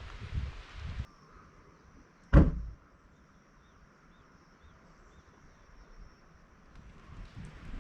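A van door shutting with a single heavy thump about two seconds in, after a second of rustling; faint bird chirps follow in the quiet.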